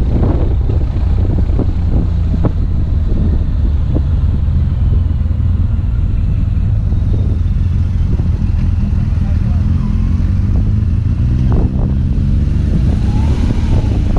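Heavy wind rumble on the helmet camera's microphone over a BMW R1200GS boxer-twin engine running down a mountain road. The engine note rises and falls in the second half as the bike takes a hairpin bend.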